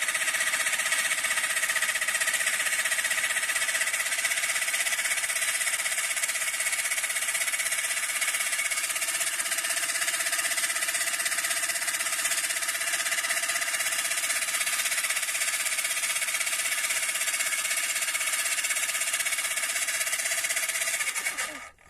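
Homemade car tyre compressor, built from a heater-fan motor and a refrigerator compressor, running with a steady mechanical rattling buzz while inflating a tyre. It stops suddenly near the end.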